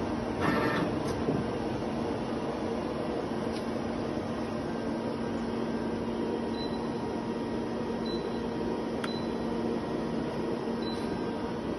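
Steady hum of a powered-up Okuma Genos L300 CNC lathe, with a low steady tone over a noisy bed. A short noisy burst comes about half a second in, a sharp click near nine seconds in, and a few faint short high beeps.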